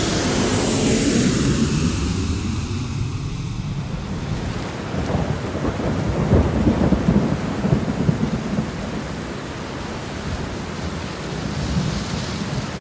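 Thunderstorm: steady heavy rain with low rolling thunder, swelling to a louder crackling peal around the middle.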